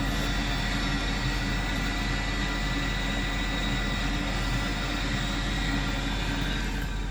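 Steady mechanical running of commercial gas boiler plant, with fans and pumps giving a constant low hum and a few steady whining tones. The higher hiss fades near the end.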